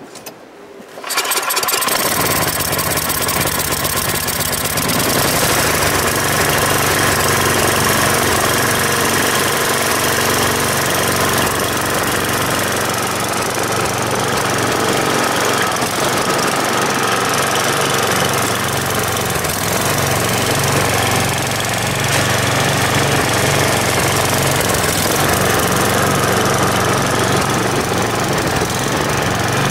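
Gas snowblower engine, about 10 horsepower, coming on about a second in and then running steadily.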